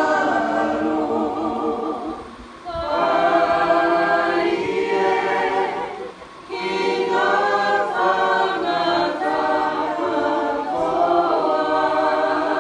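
Kapa haka group singing a Māori song unaccompanied, mostly women's and girls' voices together, in three long phrases with short pauses for breath between them.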